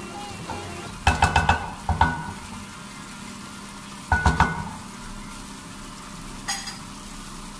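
Wooden spatula stirring chunky mixed vegetables in a metal pan over a faint sizzle, knocking against the pan in quick clusters about a second in, at two seconds and at four seconds, with one more lighter knock near the end.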